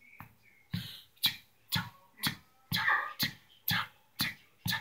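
Vocal beatboxing: mouth percussion in a steady beat of about two hits a second, deep kick sounds alternating with hissing snare sounds, starting about a second in.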